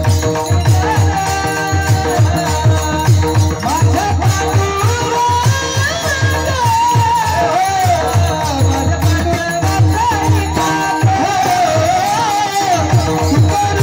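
Varkari kirtan music: a steady, fast drum beat under a melody of held tones and a line that slides up and down in pitch.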